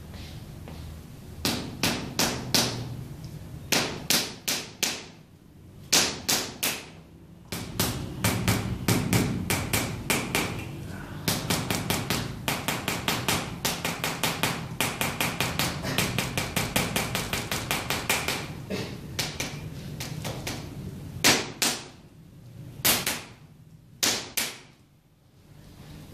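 Wooden massage tools striking the heels in quick percussive blows: first in short groups of three or four, then a fast steady run of about four or five a second, then a few single strikes near the end. This is percussion massage for heel spurs, the blows meant to drive vibration into the heel.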